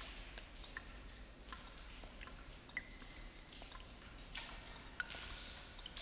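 Water drops falling irregularly into water, each a short plink, with echo as in a small room. A few drops leave a brief ringing tone, one a little before the halfway point and one near the end.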